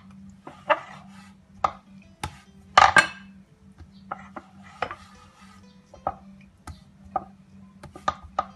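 Wooden rolling pin and round wooden chapati board knocking and clattering on a stone countertop as dough is rolled out: about a dozen sharp, irregular knocks, the loudest about three seconds in. The board is slipping and shifting on the counter because nothing is laid under it.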